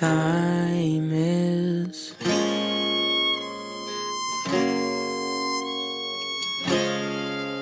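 Music from a stage sound system: an instrumental passage of held, guitar-like chords that change about every two seconds, with no singing.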